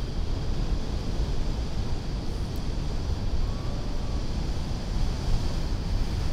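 Wind rumbling on the microphone over a steady rush of breaking surf.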